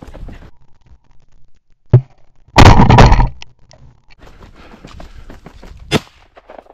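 Benelli semi-automatic shotgun firing at a flushed pheasant: a sharp shot about two seconds in, a longer blast that overloads the microphone just after, and another shot near the end. Between the shots there is rustling and crunching of footsteps through dry grass and snow.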